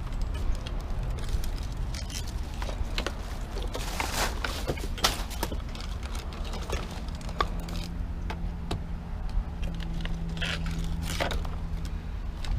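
Scattered knocks, clatters and scrapes of curbside scrap being handled and loaded, over a steady low rumble.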